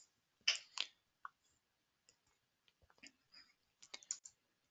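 A few short, faint clicks, two close together about half a second in and a scattered handful near the end, with no speech.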